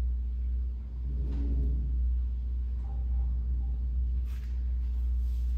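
Hurricane wind buffeting the microphone: a loud, steady low rumble.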